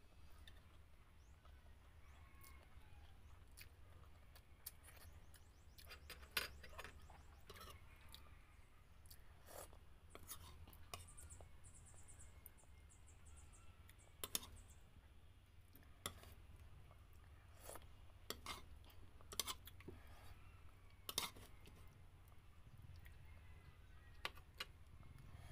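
Quiet eating sounds: soft chewing with scattered sharp clicks, a few of them louder, over a low steady hum.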